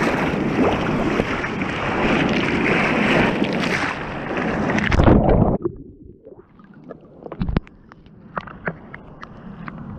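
Surf water rushing and splashing over a surfboard-mounted camera, loudest about five seconds in as a wave breaks over the board. Then the sound goes suddenly muffled as the camera drops to the waterline, leaving faint gurgling with scattered knocks and drips.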